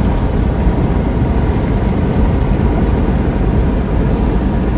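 Steady low rumble of road and engine noise heard from inside a car driving along a highway.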